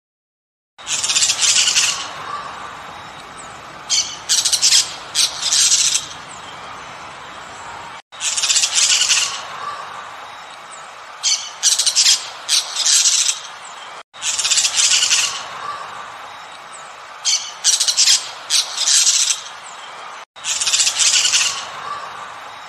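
Parrot squawking: a long harsh call followed by a quick run of short shrill screeches. The same pattern repeats about every six seconds as a loop, starting about a second in.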